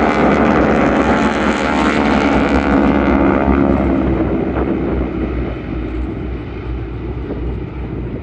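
Engines of a formation of propeller planes making a flyby. The drone is loud at first and fades steadily as the planes fly away.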